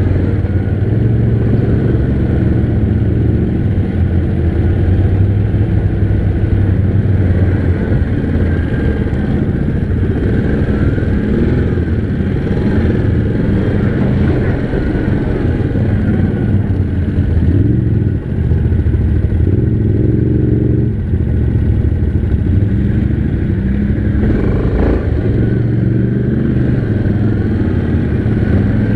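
ATV engine, a Yamaha Grizzly 700's single-cylinder four-stroke, running on the move with its note rising and falling as the throttle is worked, with a brief drop in the throttle about two-thirds of the way through.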